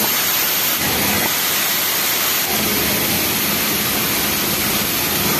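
Steady loud hiss and whir of a garment-factory sewing floor, with industrial sewing machines running; a steady low hum joins about halfway through.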